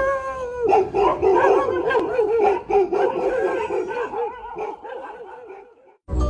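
A dog howling and whining in one long wavering cry, its pitch warbling rapidly up and down. It fades a little and cuts off about six seconds in.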